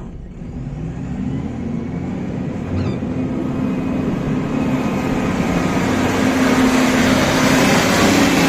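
A motor vehicle's engine running, growing steadily louder over several seconds.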